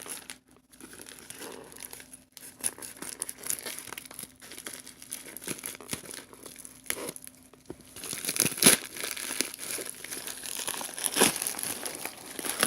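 Packaging crinkling and tearing as a mailed package is opened by hand: a run of irregular crackles that gets louder about eight seconds in.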